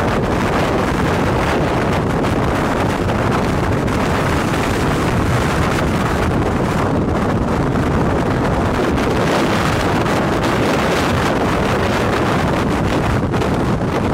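Strong storm wind blowing hard across the microphone, a loud, steady rushing noise.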